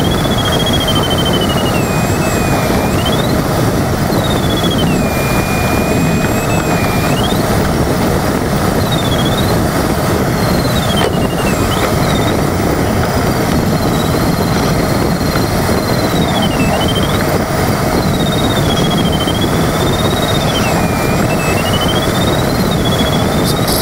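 Steady rush of air streaming over the LS4B glider's cockpit, with a high electronic variometer tone sliding up and down every second or two as it tracks the rising and sinking air.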